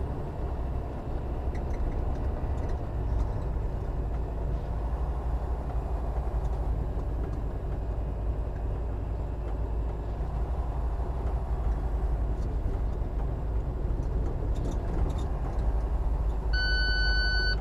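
Semi truck's diesel engine and road noise inside the cab, a steady low drone with no change in pitch. Near the end a single electronic beep sounds for about a second.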